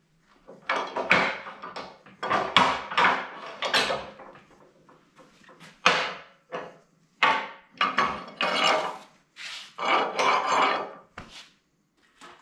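Rubber lift pads being set down and slid along the painted steel platform of a scissor car lift: a series of irregular scrapes and clunks.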